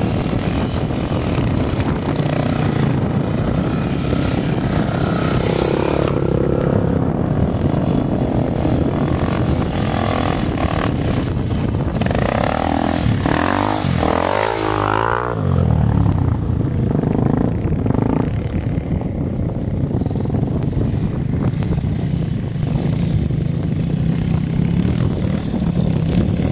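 Off-road trail motorcycle engines running as the bikes climb a loose dirt slope, with the revs rising and falling several times around the middle.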